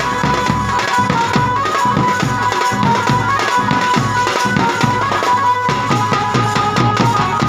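Band baja music: fast, dense drumming under a held melody line, played loud and without a break.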